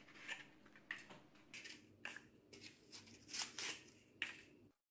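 Paper cupcake liners being peeled one by one off a nested stack and set down on a wooden table: a run of faint, short, irregular crinkles and rustles that cuts off suddenly near the end.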